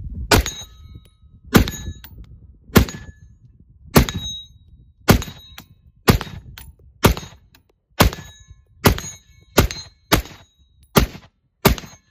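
Single aimed shots from an unsuppressed PWS Mk111 AR pistol in .223 Wylde: about a dozen sharp reports, roughly one a second and coming a little faster towards the end. Several are followed by a short ringing tone.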